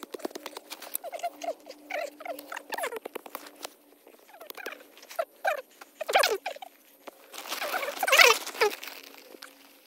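Dry, hard soil being scraped and scratched with a small hand tool and fingers, digging out a hole to bury a trap: a string of short scrapes, with a longer, louder scrape near the end.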